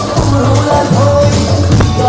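A live band performing an upbeat Odia song: a man sings held notes over electric bass and percussion.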